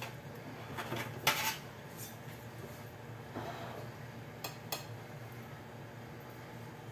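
Metal kitchen tongs clinking and scraping against a plate and a glass baking dish while salmon fillets are picked up and set down: a handful of short clinks, the loudest about a second in and two close together past the middle, over a steady low hum.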